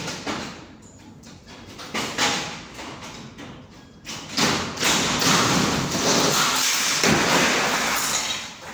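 Gypsum-board ceiling being torn down: a few sharp knocks, then about halfway through a long crackling crash of board breaking away and debris falling that lasts about four seconds.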